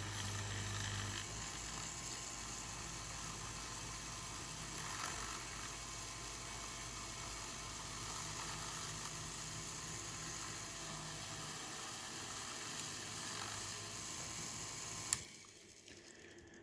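Powered draftsman's eraser, a brushless induction-motor rotary tool, running with a steady low hum and the hiss of its abrasive rubber rod scrubbing metal. It stops with a click about fifteen seconds in.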